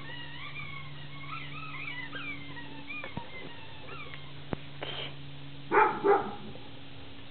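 A dog barks twice in quick succession about three quarters of the way in, over a faint steady hum and scattered short high chirps.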